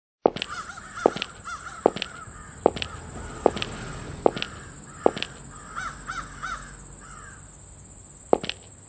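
Crows cawing in short runs of calls over evenly spaced footsteps, about one step every 0.8 seconds, with a steady high-pitched tone behind. The sound begins abruptly a moment after a brief silence.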